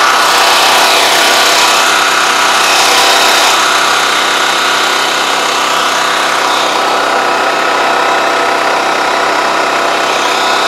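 Engine of a pesticide spraying machine running at a steady speed, a constant hum with a hiss above it.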